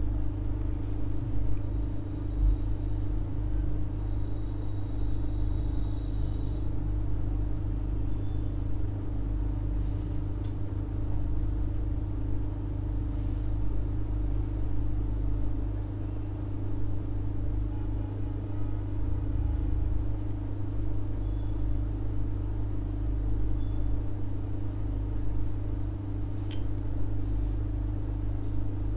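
Steady low hum and rumble from a running machine, with a few faint clicks.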